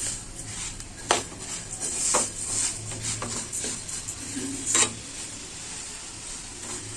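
Metal spatula stirring dry split moong dal roasting in a metal kadai: the lentils rustle and scrape against the pan. The spatula clinks sharply against the pan twice, about a second in and again just before five seconds.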